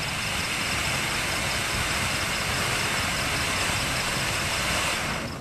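Flower pot ground fountain firework hissing steadily as it sprays sparks, dying down about five seconds in. Crickets chirp in a faint regular rhythm in the background.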